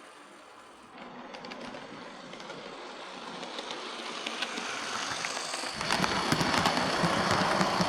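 Lima Class 37 OO gauge model diesel locomotive, converted to a CD motor, running along the track toward the microphone: a motor and wheel hum with light clicks from the rails that grows steadily louder, with a sharp rise in level about six seconds in.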